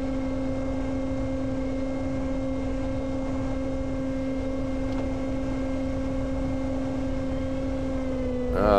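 Steady hum of the S800 Reptile flying wing's brushless motor and propeller, holding one pitch at cruise throttle as it flies overhead, with strong wind rumbling on the microphone. Near the end a short, louder wavering tone cuts in.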